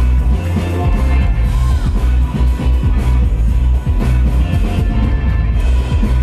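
Loud DJ music with a heavy bass beat, played over the event's sound system for a breaking battle.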